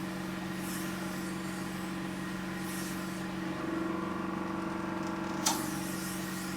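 Vacuum pump of a diastasis recti repair machine running with a steady hum while its suction cup works on the skin, with faint hisses of air at times. A sharp click comes about five and a half seconds in.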